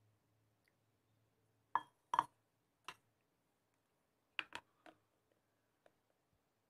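A few sharp clinks and knocks of kitchen vessels being handled on a stone counter: two close together about two seconds in, one more shortly after, then three quick ones a little past four seconds, as a filled baby feeding bottle and its nipple cap are set down and picked up.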